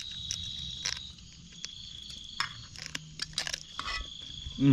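Night insects trilling in one steady high tone that drops out briefly about a second in, over light clicks and knocks of chopsticks working in a metal rice pot.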